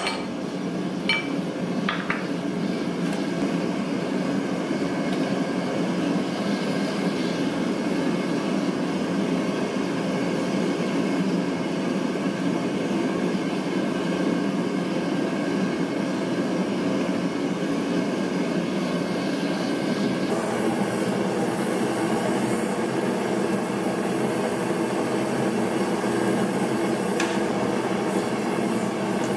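Steady roar of a running forge, with two hammer strikes on a punch driven into red-hot steel within the first couple of seconds.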